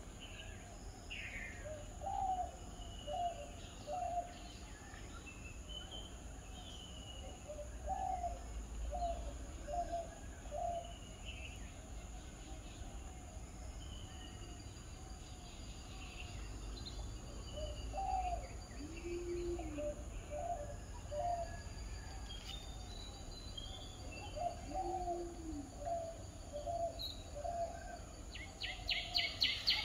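Wild birds calling: phrases of three or four short, low notes repeated every few seconds, two lower cooing notes, and scattered higher chirps. Near the end a fast, high pulsing starts, the loudest sound here.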